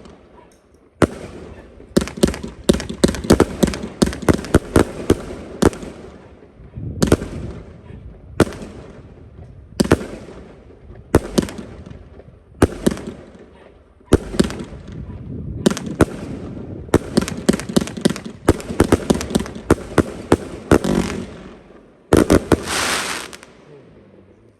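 A 72-shot consumer fireworks cake (Panda-T "America") firing: repeated thumps of shots launching and sharp bangs of aerial breaks, coming in clusters with short gaps between them. Near the end comes a dense volley of rapid bangs and crackle.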